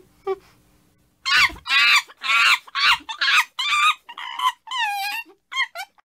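Chimpanzee calling: a couple of short hoots, then from about a second in a rapid string of loud, high screams, some sliding in pitch, with a brief break near the end.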